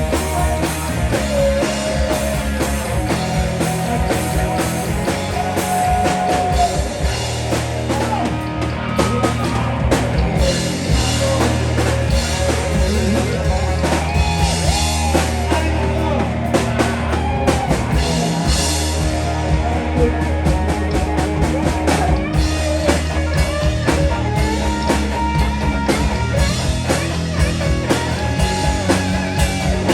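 Rock song played by a full band: drum kit, electric guitar and bass.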